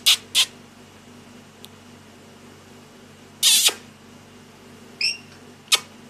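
Caged lorikeet screeching: the last two of a quick run of short sharp screeches, a longer harsh screech about three and a half seconds in, then a short higher call and one last sharp screech near the end.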